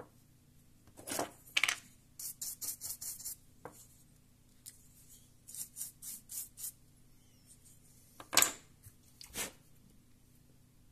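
Small bristle brush scrubbing in quick, dry, scratchy strokes. There are two runs of about six or seven strokes each, roughly six a second, and a few single louder strokes, the loudest near the end.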